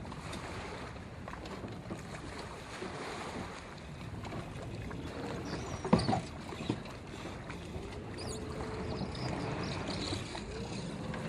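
Outboard motor running as a boat drives up onto a drive-on boat trailer, its pitch rising and falling a few times with the throttle. About six seconds in comes a sharp knock as the hull strikes the trailer slightly side-on.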